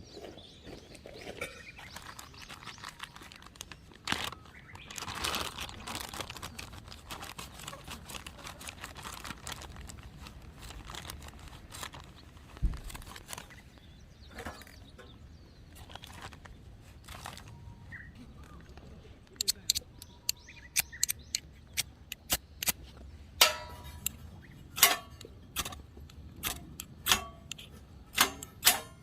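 Rustling and handling noise with a few knocks, then from about two-thirds of the way in, a run of sharp, irregular cracks and snaps of dry kindling wood during fire-starting.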